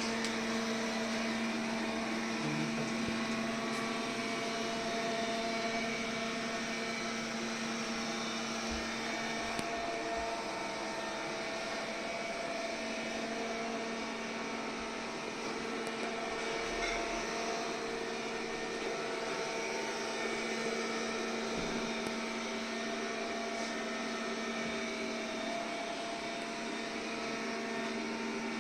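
MOVA robot vacuum cleaner running: a steady whirring hum from its suction motor, with a few constant tones over an even rush of air.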